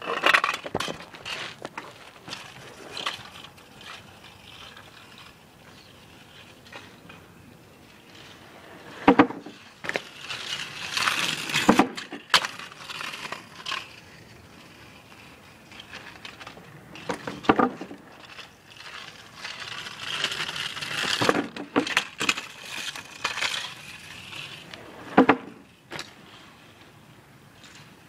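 Bicycle and scooter wheels rolling over rough tarmac and banging onto a makeshift wooden plank ramp, in several passes, each with a sharp knock as a wheel hits the ramp or lands.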